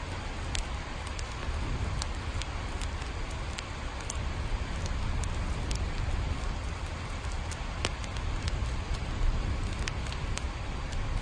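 Steady rain with a low rumble underneath, and scattered sharp ticks of drops striking a hard surface.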